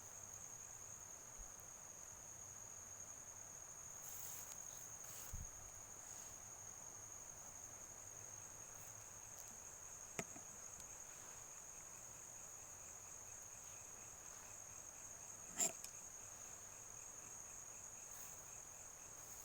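Insects keeping up a steady, high-pitched trill, with a few faint knocks, the sharpest about fifteen seconds in.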